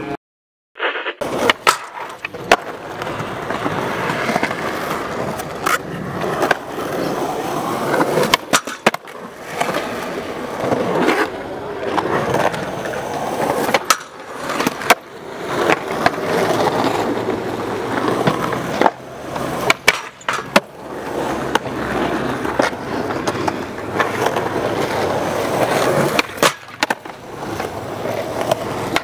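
Skateboard wheels rolling on concrete, broken by repeated sharp clacks of ollie pops, landings and the trucks grinding a concrete box ledge.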